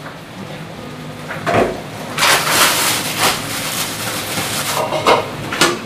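Food frying in oil in a wok, with a loud burst of sizzling about two seconds in and a few knocks and clicks of a spatula against the wok.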